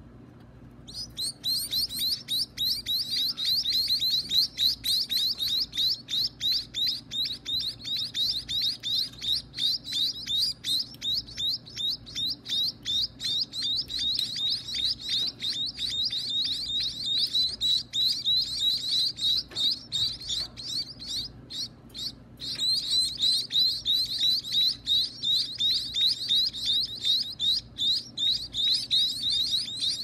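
Nestling cage birds begging while a parent feeds them: a fast, unbroken run of high-pitched chirps that starts about a second in, pausing briefly about three-quarters of the way through.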